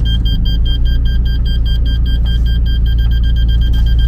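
Car engine running at low speed under a rapid, steady beeping, several beeps a second, typical of a parking or reversing sensor warning while the car manoeuvres.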